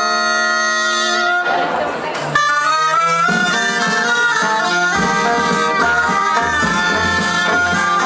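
Traditional dance music for the giants' ball on loud wind instruments. One phrase ends on held notes about a second and a half in, followed by a brief noisy rush. A quicker tune then starts, with a steady low beat joining about halfway through.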